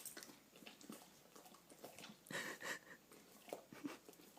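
Dog chewing a bite of orange chicken: faint, irregular wet smacks and clicks of the jaws, with a louder cluster of chewing a little past halfway.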